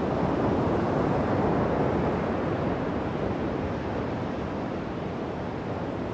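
Steady rush of ocean waves and wind, easing slightly toward the end.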